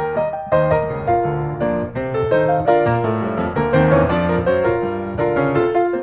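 Background piano music: a gentle melody of single notes over held chords at a steady pace.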